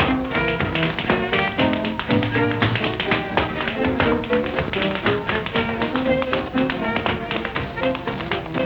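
Instrumental jazz from an early band recording, with a rapid run of tap-dance taps clicking over the band's melody, on narrow-band old-record sound.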